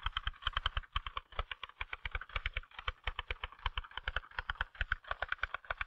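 Typewriter being typed on fast, its keys striking in a quick, even stream of clicks at about eight to ten strokes a second.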